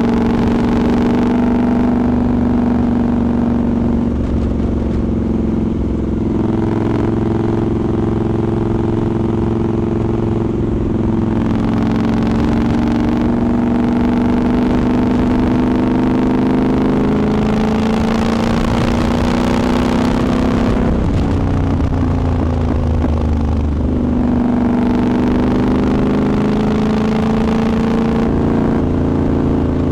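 Triumph Scrambler 1200's parallel-twin engine running under way, heard from on the bike, mostly at a steady pitch; a little over two-thirds of the way through the revs fall, then climb again. Wind rush swells and fades over the engine at times.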